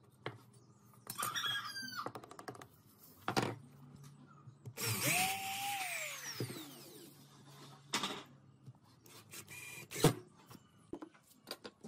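Handheld corded power drill boring into a pine frame corner, its motor speeding up and then winding down over about two seconds, followed near the end by a cordless drill briefly driving a screw into the same joint. Scattered clicks and knocks of tools being handled come in between.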